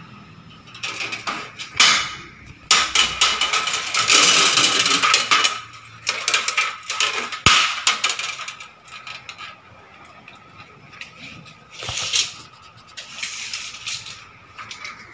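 Steel tape measure blade being pulled out and slid back, rattling and rasping in irregular bursts, with one sharp click about seven and a half seconds in.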